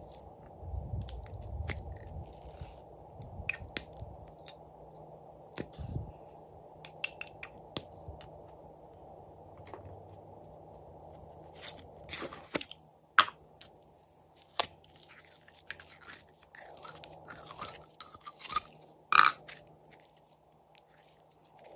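Small plastic glitter bottles handled over a bowl of slime: scattered clicks, taps and scrapes, with the sharpest, loudest clicks in the second half. Near the end, sticky slime is being stretched by hand.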